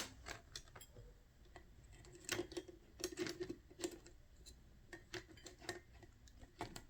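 Faint, irregular clicks and light taps from handling a phone motherboard and small hard parts while the board is being fixed in place for repair.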